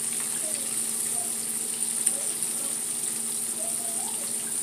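Breaded catfish nuggets deep-frying in hot oil in a skillet: a steady sizzling hiss of the oil bubbling around the fish.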